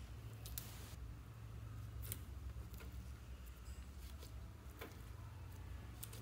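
White slime topped with green glitter being pressed, poked and folded by fingers, giving faint clicks that come irregularly, about six in all.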